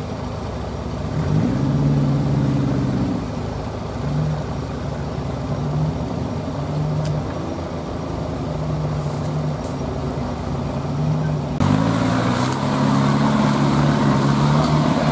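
Off-road 4x4 vehicle engine running, revving up about a second and a half in, then revving harder and louder from near the end.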